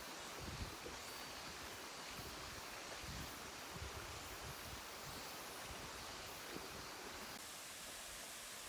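Faint, steady rushing of a flowing stream, with soft low thumps of wind on the microphone now and then.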